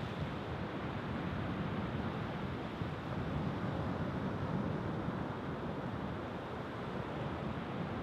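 Rough surf breaking and washing on the shore in a steady rush, with wind on the microphone.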